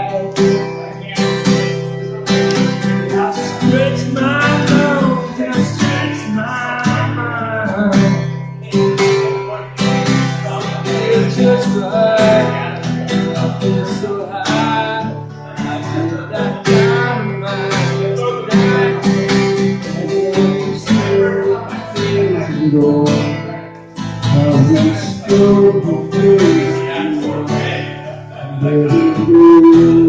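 Acoustic guitar strummed in a steady rhythm, its chords ringing on between strokes.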